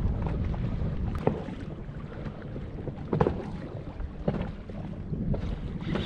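Wind buffeting the microphone over open water, a steady low rumble, with a few brief knocks about one, three and four seconds in.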